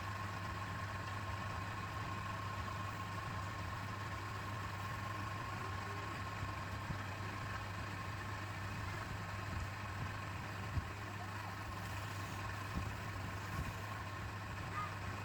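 Wood lathe's electric motor running at a steady speed: a constant low hum with a steady whine above it, and a few faint knocks.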